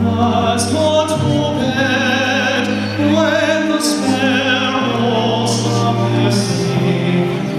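A solo singer holding sung notes with vibrato, over sustained instrumental accompaniment.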